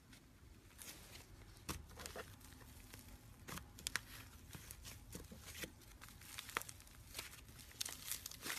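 Slime being handled close to the microphone, giving off irregular small crackling pops and clicks.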